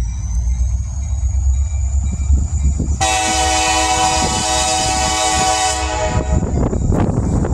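Diesel locomotive of an approaching Wheeling and Lake Erie freight train sounding one long horn blast of several notes at once, lasting about three seconds and starting about three seconds in, over the train's low rumble.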